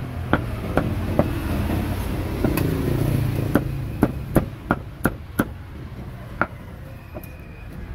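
A cleaver chopping roast pork on a wooden board: about a dozen sharp chops at an uneven pace. A low traffic rumble lies under the first half.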